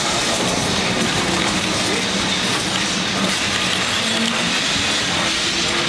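Lisbon street tram running on its rails, heard from on board: a steady noisy rumble and hiss of wheels and running gear, with faint drifting tones.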